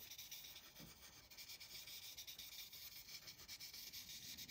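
Faint scratching of an ImagineInk marker's felt tip rubbed back and forth on the activity-book paper in many quick strokes, colouring in a picture.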